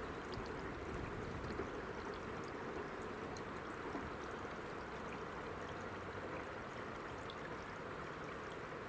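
Faint, steady rushing background ambience with a few faint, tiny ticks and no distinct event.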